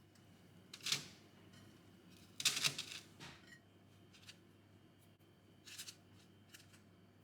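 A few short rustles and clicks of objects being handled, the loudest a cluster about two and a half seconds in, over a faint steady room hum.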